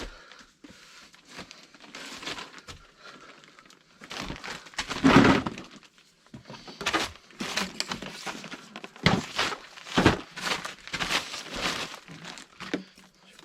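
Irregular rustling, crinkling and knocking of objects being handled and moved about, with the busiest stretch about five seconds in and a run of short knocks and rustles in the second half.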